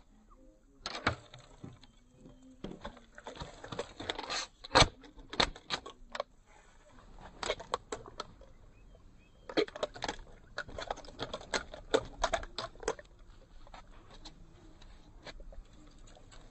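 A freshly caught red-bellied pacu flapping on the fishing line and in the hand: irregular slaps and clicks, in two busy spells with a short pause between, thinning out near the end.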